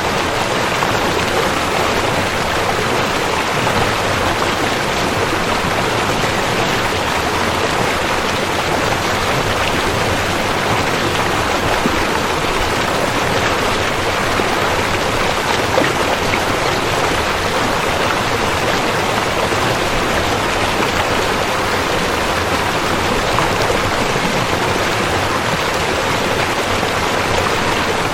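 River water flowing steadily, an unbroken rushing wash.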